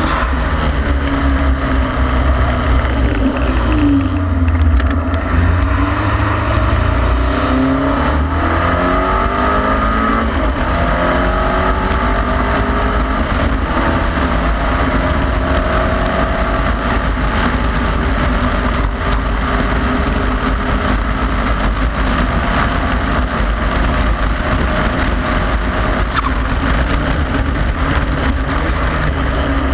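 KTM X-Bow's turbocharged Audi 2.0-litre four-cylinder engine heard from the open cockpit, under heavy wind buffeting on the microphone. The engine note falls about four seconds in as the car slows, then climbs in steps through the gears over the next several seconds.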